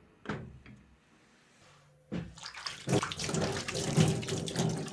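A short hard knock as a whetstone is lifted from its wooden rack, then about two seconds in, water splashing and sloshing as a hand scoops water in a tub to wet the sharpening stone.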